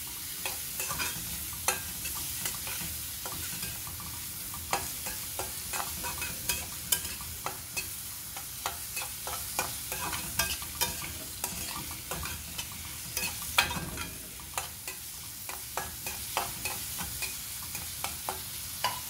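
Finely chopped onions sizzling in hot oil in an aluminium kadai while a metal spatula stirs them, scraping and clicking against the pan at an irregular pace.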